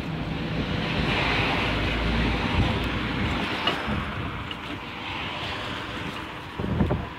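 Wind buffeting the microphone while riding on a moving longtail cargo bike, over a steady low road rumble, with a low thump near the end.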